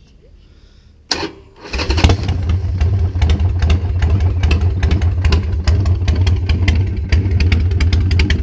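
Harley-Davidson Sportster 1200 air-cooled V-twin started: a brief crank about a second in, then it catches and runs at a steady, loud idle with a deep pulsing exhaust beat. The slip-on mufflers have their baffles removed and DKCustom Thunder Torque Inserts fitted.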